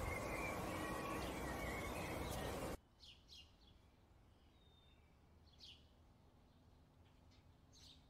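Steady outdoor background noise with faint bird calls, cutting off abruptly a little under three seconds in. After that, much quieter, a few short sharp bird chirps and a thin high whistle.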